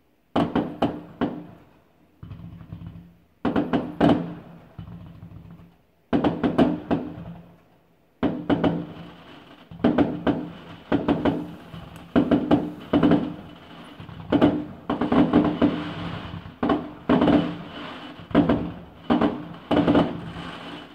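Aerial fireworks bursting in rapid volleys of sharp bangs. At first they come in short clusters with brief pauses, then almost without a break from about eight seconds in.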